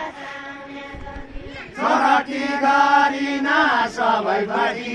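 A group of villagers singing a Nepali folk song together in a slow, chant-like unison. The voices come in strongly about two seconds in and hold long, drawn-out notes.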